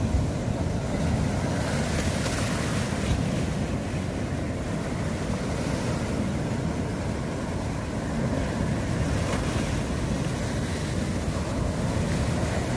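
Heavy sea swell breaking and surging against the shore as a steady rumble of surf. Louder washes of hiss come about two and nine seconds in, with wind buffeting the microphone.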